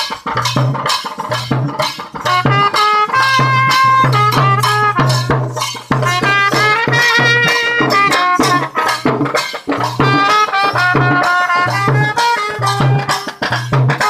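Live band music: drums beating a fast, driving rhythm with a trumpet playing a melody over them, the trumpet coming in about two seconds in.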